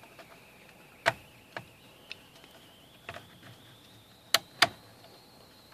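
Plastic clicks and snaps of a variable frequency drive's front cover being unclipped and lifted off by hand: about six separate clicks, the two loudest close together near the end. A faint high tone slowly rises in pitch behind them.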